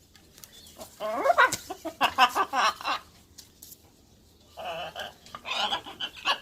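A pet parrot chattering and squawking in quick runs of short calls that slide up and down in pitch. There are two bursts, with a quiet gap of about a second and a half between them.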